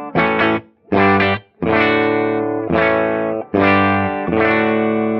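Electric guitar strummed through a valve (tube) guitar amp with a fixed-bias output stage, negative feedback on and no cathode bypass capacitor on the first gain stage. Two short chord stabs, then a run of chords each left to ring, the last still sustaining at the end.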